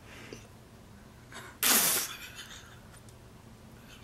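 A single sharp burst of breath from a young woman about one and a half seconds in, a stifled laugh bursting out through her lips.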